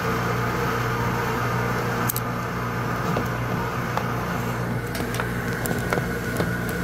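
Steady mechanical hum of the Slurpee machine's refrigeration equipment, with a few light clicks and taps from handling in the second half.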